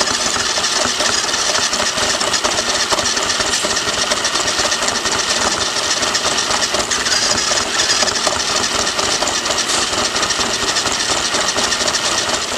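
Electric motor and gearbox of a cheap four-wheel-drive RC truck running steadily as it drives, heard up close from a camera mounted on its roof: a loud, even mechanical whir with a fast fine rattle.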